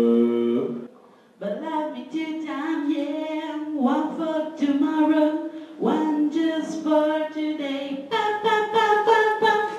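Unaccompanied singing: a low held note stops within the first second, and after a brief pause a higher voice sings a series of sustained notes that slide and step between pitches.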